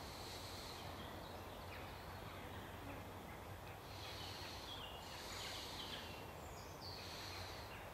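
Faint high-pitched chirping calls, in short phrases every second or so, over a low steady hum in a quiet wood at dusk.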